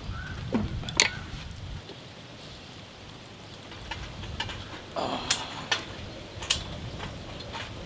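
Sharp metallic clicks and clinks of steel hooks being hooked onto the brackets of a metal rotisserie frame, about half a dozen, mostly in the second half. Low wind rumble on the microphone in the first couple of seconds.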